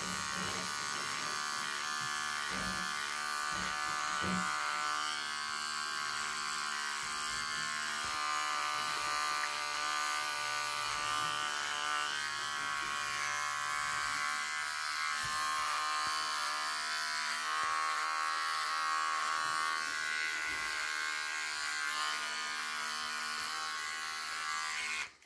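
Electric hair trimmer buzzing steadily as it trims a short beard, cutting off just before the end.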